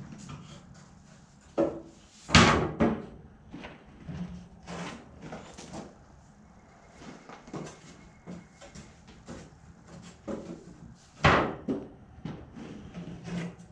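Wooden knocks and bangs as things are handled and set down on a wooden shelving unit: a scatter of light knocks, with two louder bangs about two seconds in and about eleven seconds in.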